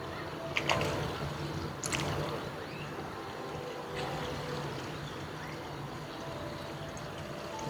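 Flamingo pond ambience: a steady trickle of water, with a few short, sharp calls or clicks in the first two seconds.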